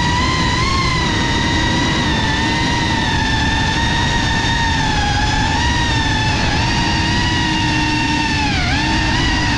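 FPV racing quadcopter's brushless motors and propellers whining over a low rushing noise. The pitch wavers with the throttle and dips sharply near the end as the throttle is eased off, then climbs again.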